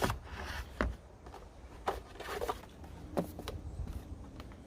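Packaging being handled and opened, with scattered sharp clicks and short rustles, several of them a second or so apart.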